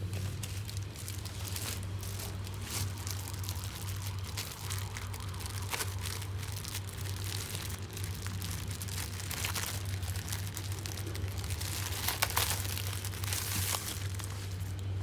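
Plastic packaging crinkling and rustling as it is handled, in a dense, irregular run of crackles, over a steady low hum.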